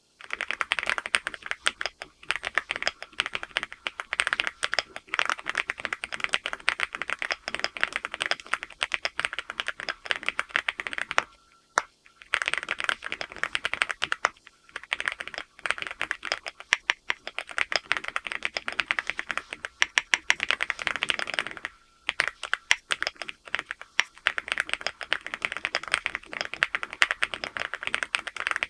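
Continuous typing on a LEOBOG HI8 aluminium-cased mechanical keyboard with Graywood V4 linear switches: quick runs of crisp keystrokes, paused briefly twice.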